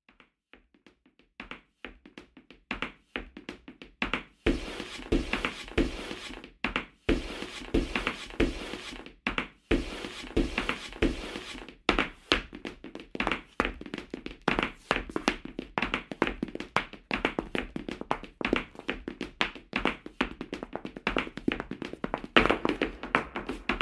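Tap dancing: tap shoes striking the floor in fast, irregular rhythmic footwork. A few scattered taps open it, and from about four seconds in the strikes come thick and quick.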